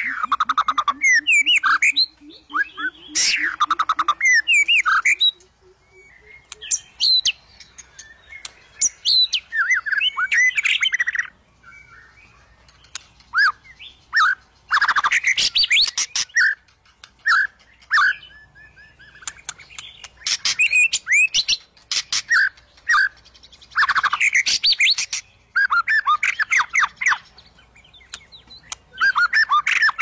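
White-rumped shama (murai batu) singing in loud bursts of rapid, varied whistles, glides and harsher chattering notes, each burst lasting a second to a few seconds with short pauses between them.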